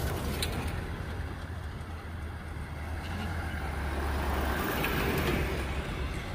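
Toyota Land Cruiser SUVs and another SUV driving slowly past on a dirt track: a low, steady engine rumble with tyre noise on the dirt, growing a little louder as a vehicle draws level.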